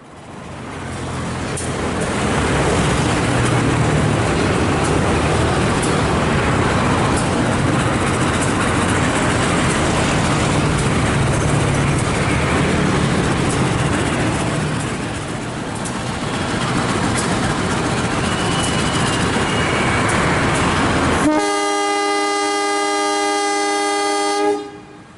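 A train passing close by, a loud steady rumble of wheels on rail, then one long blast of its horn, several notes sounding together, starting about 21 seconds in and lasting about three seconds.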